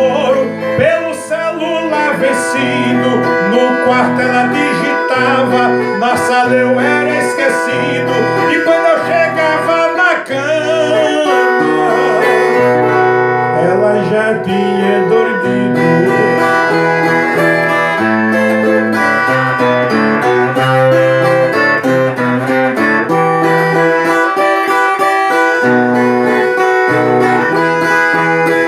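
A man singing to his own strummed acoustic string instrument; his voice drops out about halfway through and the instrument plays on alone.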